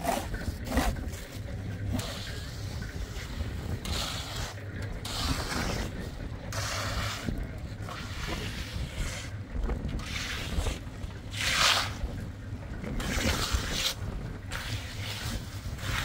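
Steel hand trowel scraping and swishing over wet concrete in repeated strokes, each lasting under a second, with steady wind noise on the microphone underneath.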